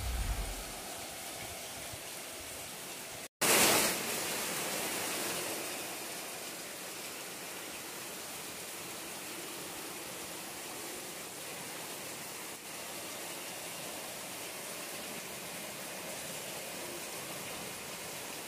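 Heavy rain pouring down onto plants and ground: a steady hiss. It cuts out for an instant a few seconds in, comes back louder for a couple of seconds, then settles to a steady level.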